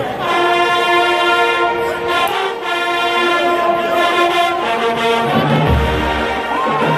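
Marching band brass playing a loud, held chord that starts suddenly. Deep bass notes from the sousaphones and drums join about five and a half seconds in.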